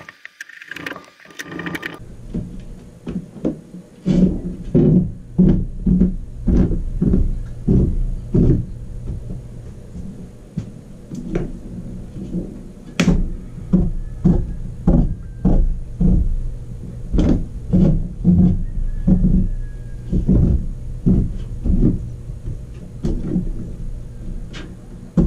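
Hand crank of an RV roof vent being turned, its mechanism knocking about twice a second as the vent lid is cranked.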